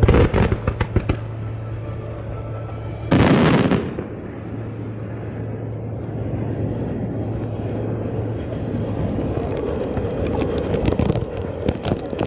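Aerial firework shells bursting: a loud bang followed by a quick run of sharp reports in the first second, a second loud boom about three seconds in, and a few sharp pops near the end.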